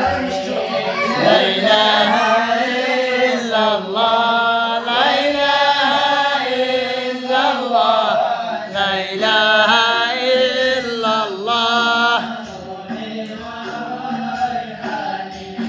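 Voices chanting a devotional mawlid hymn, in long held phrases that rise and fall.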